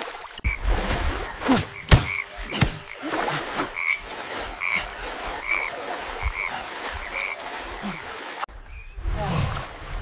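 Frogs croaking in a swamp, short calls repeating about once a second over a steady hiss, with a sharp knock about two seconds in. The chorus breaks off shortly before the end, giving way to a low rumble.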